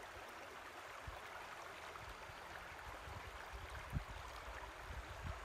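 Shallow stream water flowing and babbling over stones, a steady fairly quiet rush, with a single low thump about four seconds in.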